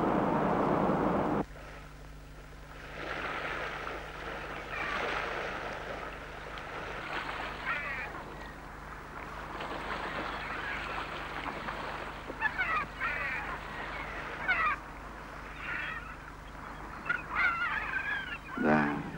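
Steady din of printing machinery that cuts off about a second and a half in. Then water birds call again and again over a quiet background, in short cries that rise and fall in pitch.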